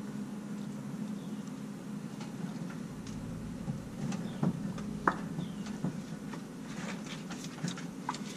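Small scattered clicks and rubbing as spark plug wires and their boots are worked loose by hand in a cramped engine bay, with one sharp click about five seconds in, over a steady low hum.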